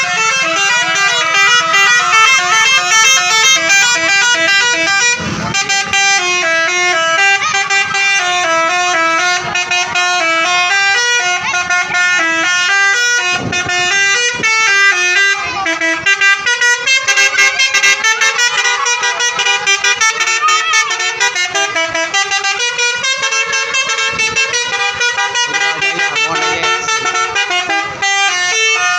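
Telolet horns on Tunggal Jaya buses play fast melodies of short stepped notes. Several horns overlap and answer one another.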